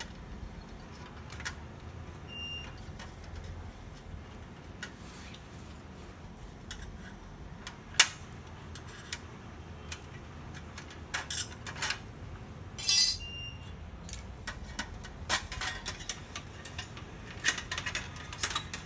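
Scattered metallic clicks and clinks as a screwdriver works on a laser printer's sheet-metal frame and the loosened metal bar is handled and lifted out. One sharp click about eight seconds in is the loudest, with busier clusters of clinks later on.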